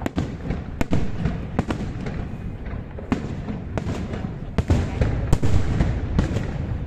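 Aerial fireworks display: shells bursting overhead in quick succession, sharp bangs at uneven intervals over a continuous low rumble.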